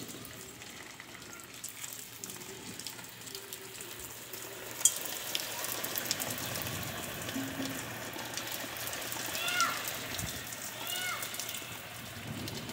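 Steady rain falling, an even hiss of drops. A sharp click about five seconds in, and two short high calls near the end.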